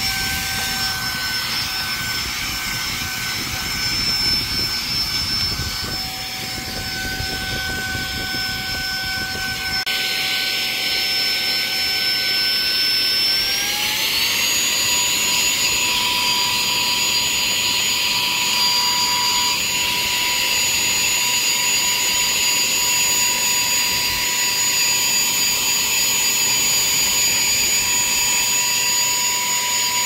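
Saker 3-in-1 cordless handheld mini vacuum cleaner running, a steady motor whine over a rush of sucked air. About fourteen seconds in, the whine glides up to a higher pitch and holds there.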